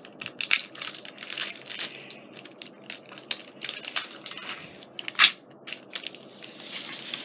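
Crinkling, crackling and clicking of paper and plastic scrapbooking supplies being handled and opened, with one sharper click about five seconds in.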